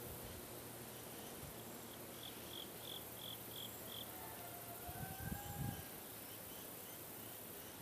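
Quiet woodland ambience: a short run of six high chirps, about three a second, then a faint drawn-out tone gliding in pitch and a few soft low thumps a little later.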